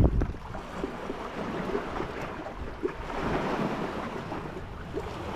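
Wind buffeting the microphone at the start, then a steady wash of lapping water that swells about three seconds in, with a few faint ticks.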